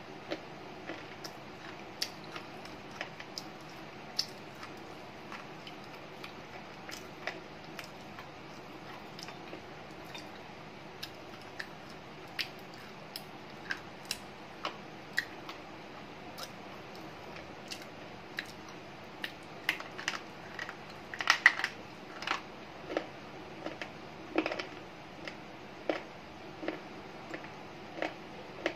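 Close-up crunching of a slate pencil being bitten and chewed: sharp, dry crunches about once a second, with a burst of louder crunches about two-thirds through.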